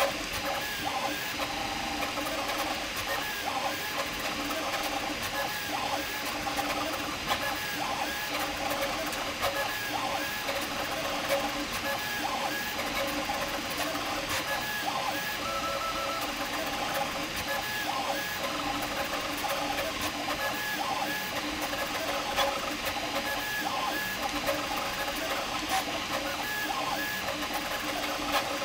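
Prusa MK4 3D printer printing fast on input-shaping firmware: its stepper motors whine in short, quickly changing tones as the print head darts back and forth, over a steady hiss.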